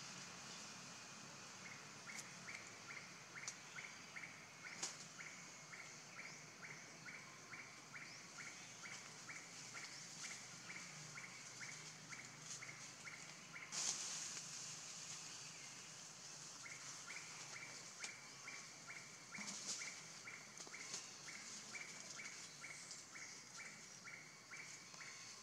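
Faint forest ambience: an animal call of short, evenly spaced notes, about three a second, in two long runs with a short break a little past the middle, over a steady high hiss. A few sharp clicks and a brief rustle come through about halfway.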